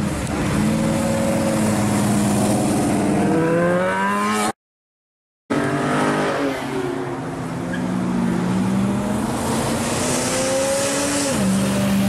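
Car engines accelerating as they drive past one after another, each engine note climbing steadily in pitch. The sound cuts out completely for about a second some four and a half seconds in. Near the end the pitch drops suddenly to a steady lower note.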